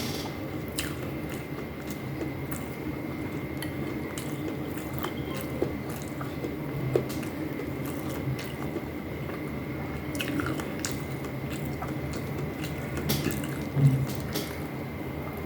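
Close-miked eating: wet chewing and mouth sounds of someone eating fish stewed in vinegar with rice, with scattered small clicks.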